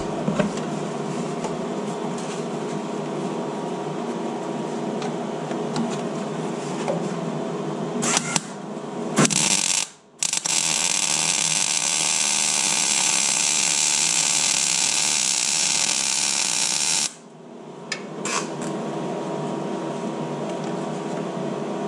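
MIG welder laying a tack weld on a steel chassis crossmember. After two brief arc starts, the arc runs as a steady crackling hiss for about six seconds, starting about ten seconds in, then stops suddenly. A steady machine hum runs underneath before and after the weld.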